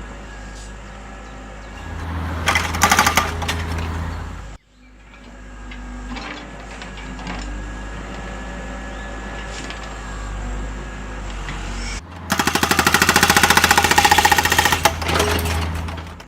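Breaker hammer attachment of a Double E E598 RC excavator chattering rapidly against stone in two bursts: a short one about two seconds in, and a louder, longer one from about twelve seconds in. Between them the model's motor and hydraulic pump whir steadily.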